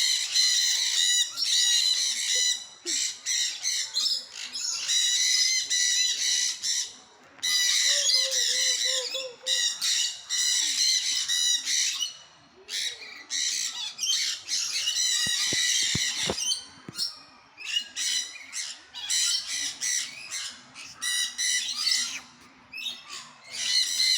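Many birds squawking loudly and almost without pause, harsh high-pitched calls running in long stretches broken by short lulls.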